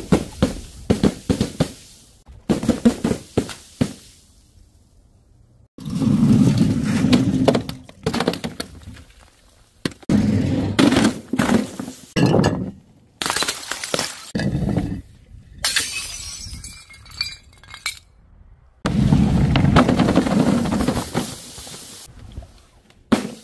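A series of smashing drops onto hard boards: first a quick run of sharp cracks and knocks, then several longer stretches of crunching, crackling and splashing as plastic drink bottles and cans hit a board studded with spikes and burst, with one airy hissing stretch in the middle.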